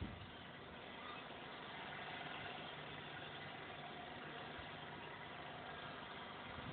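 Faint, steady hum of a distant engine over a background hiss, with a brief knock at the very start.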